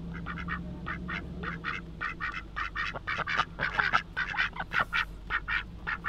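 A group of white domestic ducks quacking in a rapid string of short calls that grows busier and louder from about two seconds in.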